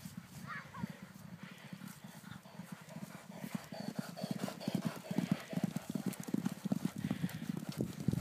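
Hoofbeats of ponies cantering on a sand gallop track, a run of dull low thuds that grow louder about halfway through as they come up close and pass.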